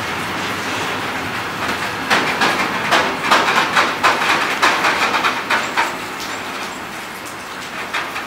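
Freight train of box wagons rolling past and drawing away. About two seconds in, a run of sharp wheel clicks over the track starts, about three a second, then thins out and the rolling noise eases as the train recedes.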